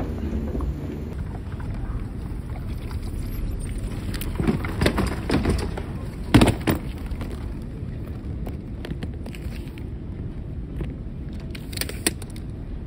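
Low steady rumble of a baggage claim hall with a few scattered knocks. A hard-shell suitcase clunks loudly about six seconds in as it is taken off the baggage carousel, and knocks once more briefly near the end.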